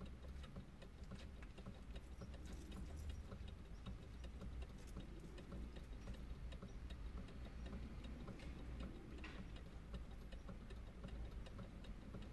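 Regular light ticking clicks, heard inside a car, over a steady low rumble.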